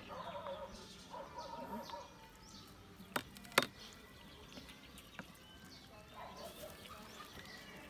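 A wooden spatula stirring marinated sliced shiitake mushrooms in a ceramic bowl: quiet mixing, with two sharp clicks of the spatula against the bowl about half a second apart, a little past three seconds in.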